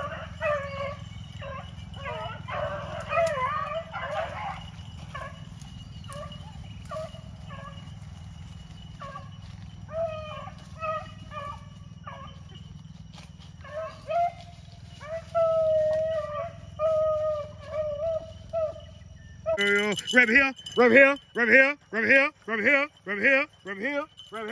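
A pack of rabbit hounds baying on a rabbit's trail, the voices fainter through most of the stretch. About 20 seconds in, the baying turns suddenly louder and quicker, about two bays a second, as the dogs run close by.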